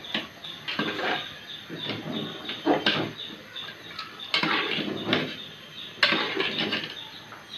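A long metal spoon stirring rice and broth in an aluminium pot, scraping and knocking irregularly against the pot, with louder clanks about three and six seconds in.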